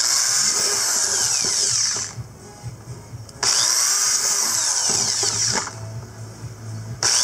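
Electric drill with a 1/4-inch bit boring holes through the wall of a plastic 5-gallon bucket: two bursts of about two seconds each, the motor pitch rising and falling as the trigger is squeezed and let go, and a third burst starting near the end.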